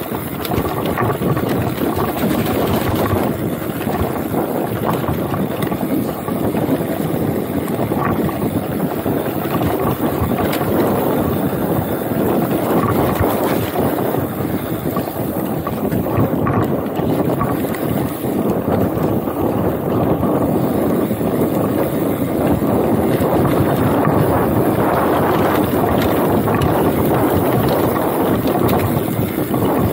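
Wind rushing over the chest-mounted action camera's microphone as a Sunpeed Spark trail/enduro mountain bike rides fast over a rough dirt trail, with the rumble of knobby tyres on dirt and stones and frequent small knocks and rattles from the bike.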